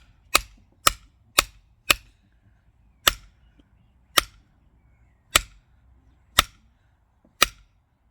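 Hammer tapping a metal chisel set in a stone nodule to split it open along a crack, in sharp ringing strikes: about four quick ones in the first two seconds, then five slower ones roughly a second apart.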